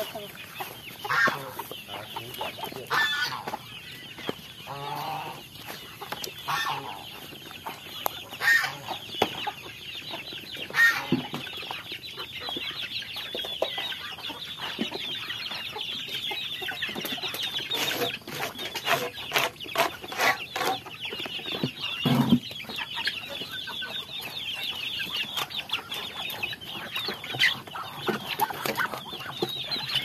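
A flock of young chickens peeping and clucking, a dense chorus of high chirps with louder single calls standing out every few seconds.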